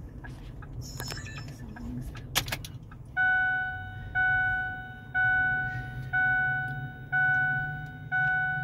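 Dashboard warning chime of a diesel truck ringing six times, about once a second, starting about three seconds in, as the ignition key is switched on to prime the fuel system after the truck ran out of fuel. A sharp click comes just before the chimes, over a low steady hum.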